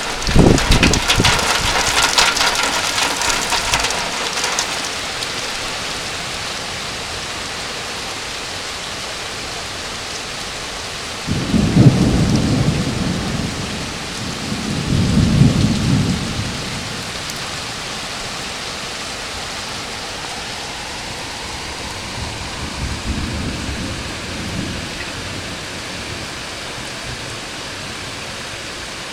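Steady rain falling, harder and harsher in the first few seconds. Thunder rolls twice, about twelve and fifteen seconds in, with a fainter rumble later.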